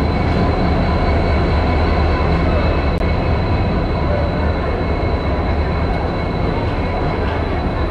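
Guwahati–Silchar passenger train at the platform: a loud, steady rumble with a thin high whine running over it.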